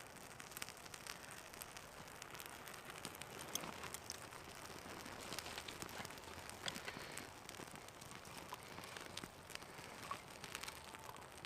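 Small kindling fire, lit from a cotton-wool-ball fire starter, crackling faintly with scattered small pops as it catches.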